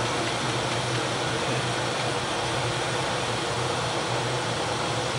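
Steady machinery and ventilation noise of a steam frigate's engineering spaces: a continuous hiss with a low hum underneath, unchanging throughout.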